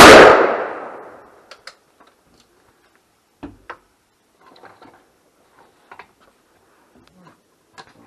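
A single shotgun blast, most likely from a Remington SPR100 single-shot 20-gauge loaded with 8-shot express shells, ringing out and fading over about a second and a half. A few faint clicks and knocks follow.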